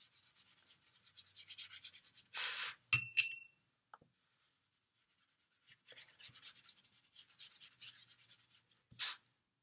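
Watercolour paintbrush scrubbing over paper drawn with wax crayon, a soft scratchy rasp in quick short strokes. About two and a half seconds in there is a brief louder swish followed by two light clinks, then the brushing resumes, with another swish near the end.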